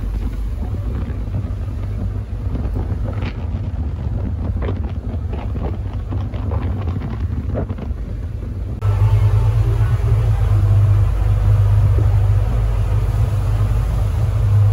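Sportfishing boat's engines droning steadily as it runs at speed over open sea, with wind on the microphone and the wake rushing. About nine seconds in the engine drone turns louder.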